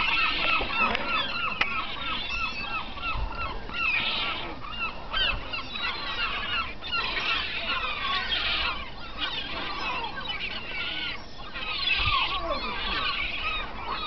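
A large flock of gulls calling at once, many overlapping cries and squawks, with a run of short repeated calls in the first couple of seconds.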